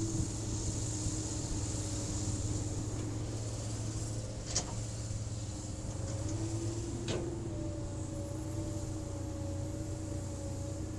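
Hydraulic excavator working: the diesel engine runs steadily with a low rumble and a tone that shifts slightly in pitch. Two short sharp clanks are heard, one near the middle and one a few seconds later.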